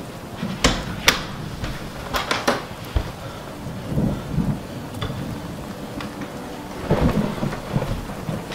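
Steady rain with low rumbles of thunder swelling about four and seven seconds in, and a few sharp clicks and knocks in the first three seconds.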